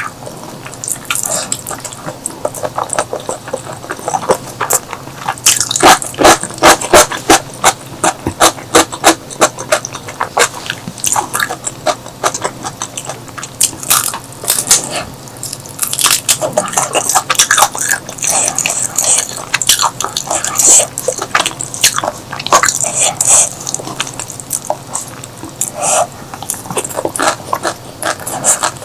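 A person eating: wet chewing, lip smacks and sharp mouth clicks in irregular bursts. The clicking is busiest about five to ten seconds in and again around fifteen seconds.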